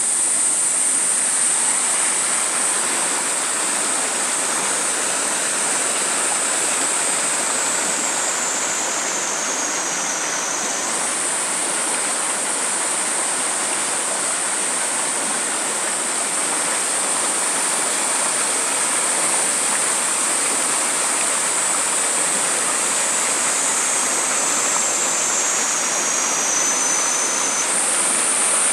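Rain-swollen, muddy stream rushing fast over rocks in a stone-and-concrete channel: a steady, loud roar of running floodwater. Over it runs a bright high hiss that twice slides lower for a few seconds and snaps back up.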